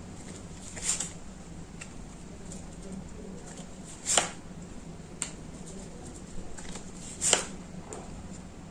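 Tarot cards being drawn and laid down: four or five short card snaps and slaps, spaced a second or more apart, over a faint steady hum.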